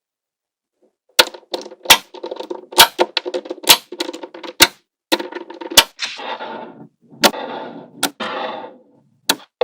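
Small magnetic balls snapping together with sharp clicks, many in quick succession, and clattering against each other. From about the middle on, longer rattling stretches come between single loud clicks.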